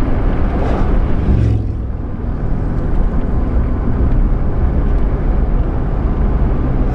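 Car engine and road noise from inside the cabin while driving, a steady low rumble that eases off briefly about two seconds in.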